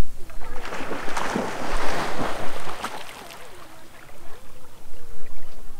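Water splashing and sloshing for about two and a half seconds, from a dog swimming in a lake, then low voices.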